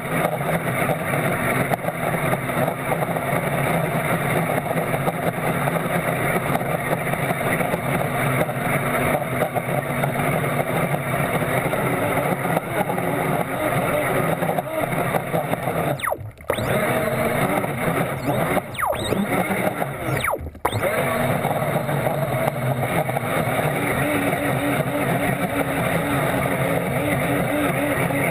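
Electric RC speedboat running at speed: its motor and rushing water make a dense, steady wash of noise that cuts out briefly three times a little past halfway, with a regular pulsing joining near the end.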